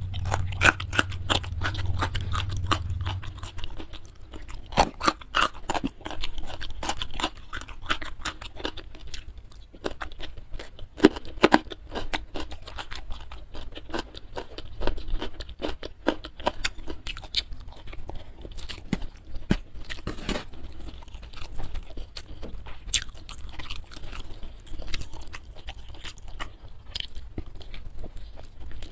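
Close-miked chewing of a mouthful of food, with many small crunching clicks and crackles.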